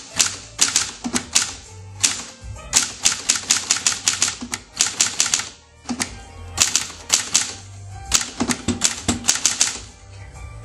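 Hermes Ambassador manual typewriter being typed on: runs of sharp key strikes, several a second, broken by short pauses between words.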